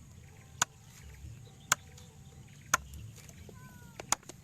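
Sharp clicks or knocks, about one a second, with a quick run of three near the end.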